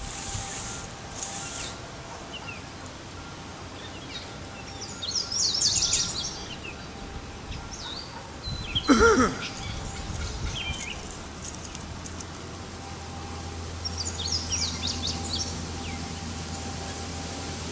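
Outdoor yard ambience: songbirds chirping in short bursts, with one louder, brief call about nine seconds in and a low steady hum coming in soon after. At the start there is a short rustle as a large parachute canopy is dragged across the grass.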